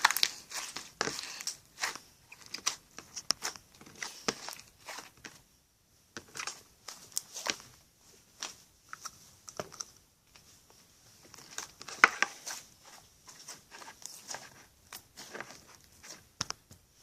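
Slime being squished, poked and pulled by hand, making irregular sticky clicks and pops, with a brief pause about five seconds in.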